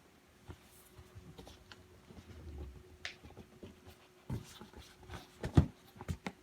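Handling noise: scattered soft thumps and rustles, then several sharper knocks in the last two seconds, the loudest about five and a half seconds in, over a faint steady hum.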